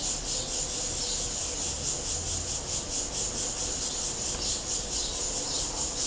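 Steady high-pitched insect chirring, pulsing several times a second, over a faint low hum.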